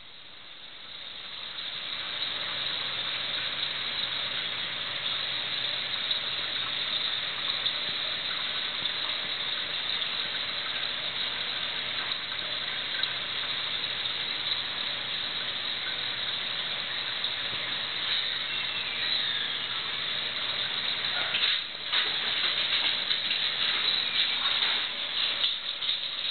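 Steady hiss of running water with a low hum, the sound of a reef aquarium's pumps and water flow. It fades in at the start. From about 21 seconds in, a scattered run of sharp clicks and knocks comes over it.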